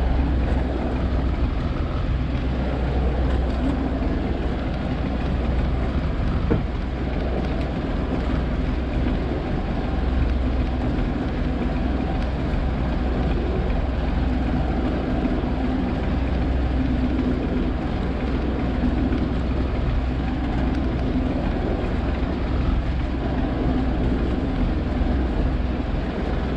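Fishing boat's engine running steadily, a low even drone.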